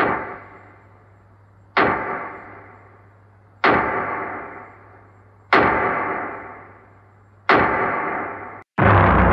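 Five sharp, ringing impact hits of a cinematic sound effect, evenly spaced about two seconds apart, each fading out slowly. Near the end a drum-led music track comes in.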